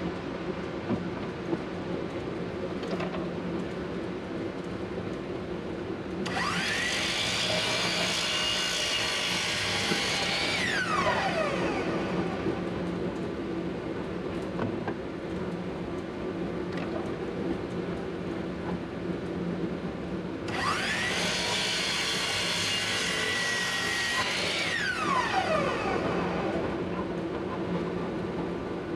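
A power saw motor spins up to speed, runs for about four seconds and winds down, twice, as the ends of a glued-up hardwood board are squared. A steady low shop-machine hum runs underneath.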